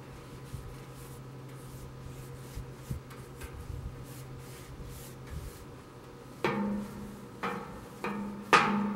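Knocks on the hollow steel tank of a homemade offset smoker, each leaving a short metallic ringing hum; four of them in the last few seconds, the last the loudest. Before that only a faint steady low hum.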